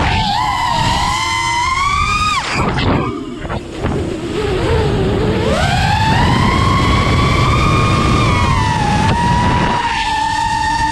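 FPV racing quadcopter's brushless motors (Hyperlight 2207.5 1922kv on 6S with 5-inch props) whining, the pitch rising and falling with the throttle. The whine dips low in the middle as the throttle is chopped, then climbs back and holds.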